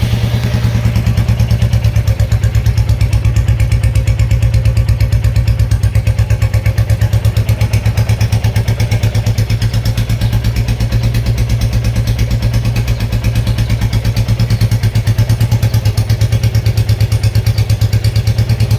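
Royal Enfield Bullet single-cylinder motorcycle engine idling steadily and loudly through a newly fitted aftermarket silencer, with an even, rapid exhaust beat.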